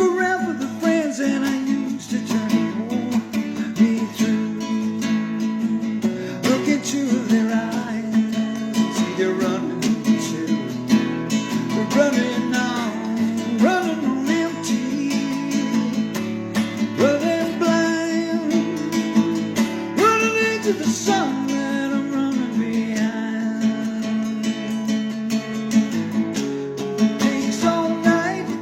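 Music: strummed acoustic guitar chords with a lead melody line that slides up and down in pitch over them.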